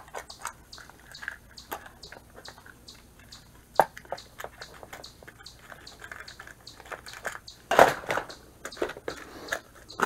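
Plastic tackle-box trays and small metal lures being handled: scattered clicks, taps and light rattles, with the loudest knocks about eight seconds in.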